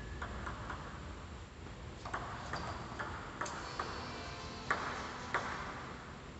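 Table tennis rally: a celluloid-type ping-pong ball clicking off rubber paddles and bouncing on the table, about seven sharp ticks roughly half a second apart, the last two the loudest.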